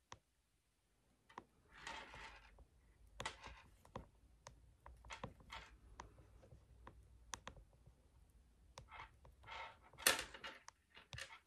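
Faint scattered clicks, ticks and short rustles from hands working monofilament fishing line, a hook and a wire rig bracket, while a hook is threaded onto the bracket and the line pulled through; a louder rustle comes about ten seconds in.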